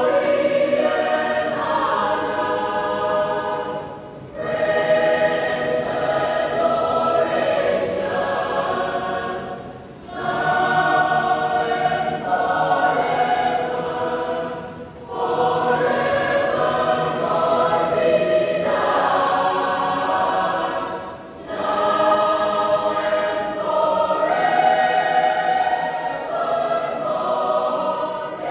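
Mixed choir of men's and women's voices singing a hymn in long held phrases, pausing briefly for breath about every five to six seconds.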